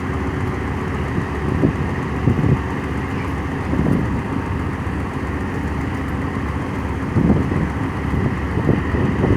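Tugboat diesel engine running steadily, with gusts of wind buffeting the microphone now and then.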